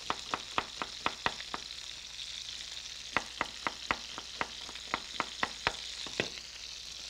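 Chef's knife slicing onions on a wooden cutting board, the blade striking the board about four times a second in two runs with a pause of about a second and a half between them, over a steady hiss.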